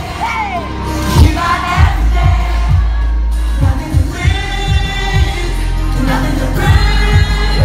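A male singer sings a pop song live into a microphone over loud backing music with a heavy bass line and regular kick drum beats.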